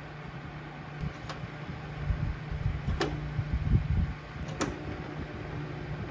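Cen-Tech heavy-duty battery charger running unloaded at full line voltage, with a steady hum and its cooling fan running. Its rotary selector switch clicks three times, about every one and a half seconds, as it steps through the charge settings.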